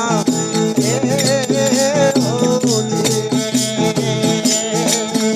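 Instrumental interlude of Indian folk devotional music: a steady drone under a wavering melody line, with percussion keeping a steady beat.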